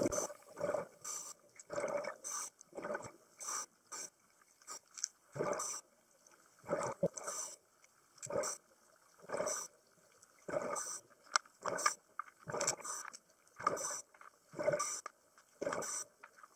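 Scuba diver's regulator breathing underwater, played back fast-forwarded: short bursts of breath hiss and exhaled bubbles about once a second, with quiet gaps between.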